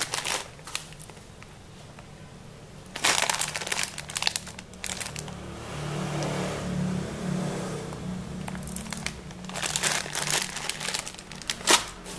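Thin plastic packaging crinkling in three bouts as a bag of RJ45 connector plugs and its wrapping are handled, with a sharp crackle near the end.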